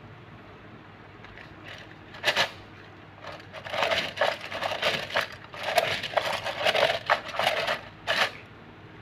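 Irregular bursts of light clinking and rattling from small hard objects being handled: a short burst about two seconds in, then bursts from about three and a half to eight seconds.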